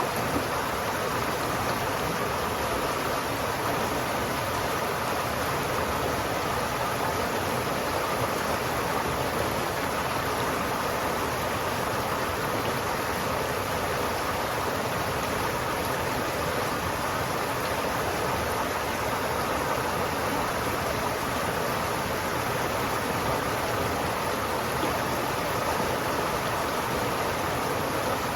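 River water flowing steadily, a constant rushing with no breaks.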